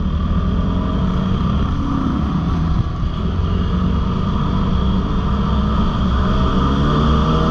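Dirt bike engine running at speed, with wind buffeting the helmet-mounted microphone. The engine note climbs near the end as the bike accelerates.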